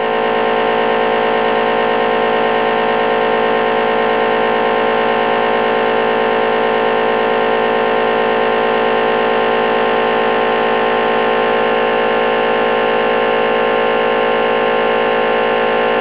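Pro 2300 vacuum sealer's pump running steadily, drawing deep vacuum on a mason jar through a wide-mouth jar sealer attachment. The pump is holding the vacuum that makes the water in the jar boil at room temperature, so it is pulling water vapor through itself.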